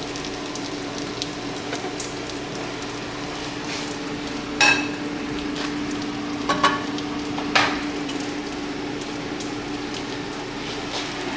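Bacon sizzling steadily as it fries in a pan, over a steady hum. Three short metallic clinks of a utensil against a plate or pan come about halfway through.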